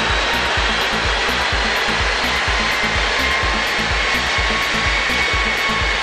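Renault Megane 2's 1.9 dCi four-cylinder turbodiesel running hard on a chassis dynamometer, a loud steady rush of engine, spinning rollers and cooling fan, with faint tones drifting slowly in pitch. Music with a steady beat plays over it.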